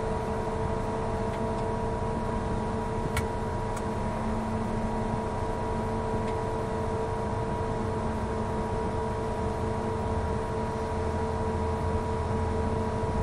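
Liebherr LR1200 crawler crane's diesel engine running steadily, heard from inside the operator's cab, with a low rumble and a steady high whine over it while a load is held on the hook.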